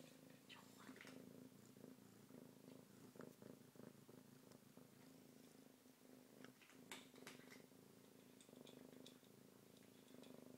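Kitten purring steadily and faintly, close to the microphone, with a few faint clicks over it.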